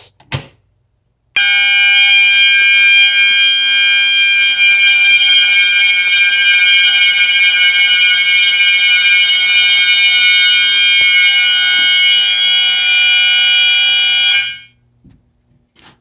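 System Sensor mass notification horns sounding a fire alarm in a steady, loud, continuous tone after the pull station is pulled. The tone starts about a second in and cuts off suddenly near the end as the system is silenced.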